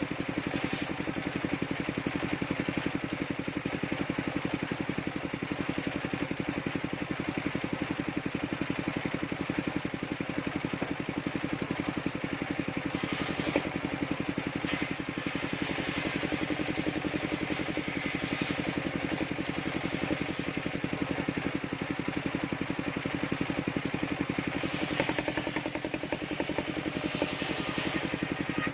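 Engine of a mobile circular sawmill running steadily at an even pace, with brief higher-pitched hiss about halfway through and again near the end.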